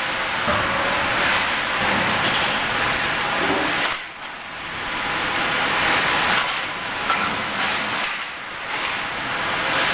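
Steady industrial din from an angle-steel section mill line, a dense noise with a faint steady hum, broken a few times by sharp clanks of steel bars.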